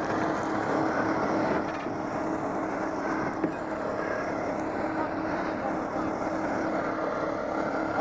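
Small boat's engine running steadily: a steady hum under a wash of noise.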